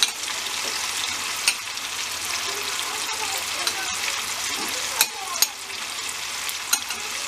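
Köfte meatballs sizzling steadily in hot oil in a frying pan, with a few sharp clicks of metal tongs against a plate.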